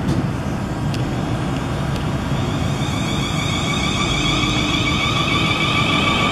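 Siemens Desiro Class 450 electric multiple unit pulling out of a station, its wheels rumbling. The whine of its traction motors builds from about two and a half seconds in as it accelerates.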